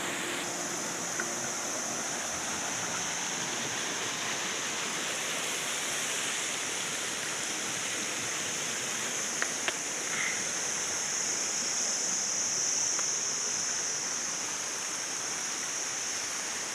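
A rocky mountain stream rushing over boulders: a steady broad rush of water with a steady high hiss above it. Two faint clicks come about nine and a half seconds in.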